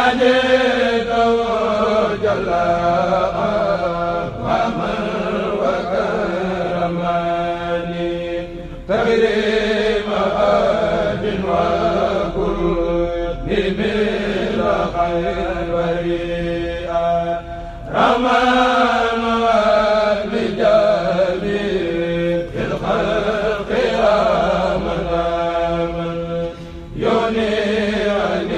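Men's voices chanting a Mouride khassida without instruments, in long melismatic phrases with brief breaks between them.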